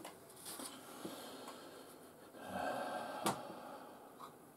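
Soft handling and scraping sounds on a workbench, with one sharp click about three seconds in.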